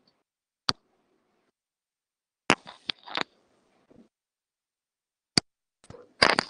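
Stylus tapping on a tablet screen while writing: a single sharp tap, a cluster of three about two and a half seconds in, another single tap, and a quick flurry of taps near the end, with silence in between.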